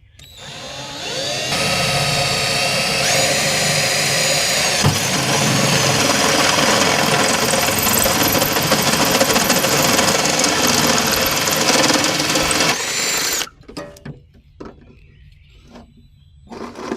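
Power drill spinning up and boring the bilge pump outlet hole through the aluminum hull of a jon boat. Its motor whine steps up in pitch a couple of times and stops about thirteen seconds in, followed by a few light knocks.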